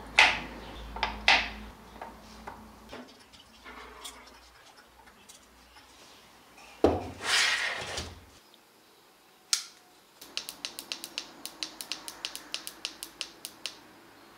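Handling sounds of a wooden-framed homemade air pump on a tabletop: a few sharp knocks, then a thump and a scrape as the box is set down and moved. Near the end comes a quick, even run of small clicks, about five a second, as a button on its digital pressure switch is pressed over and over.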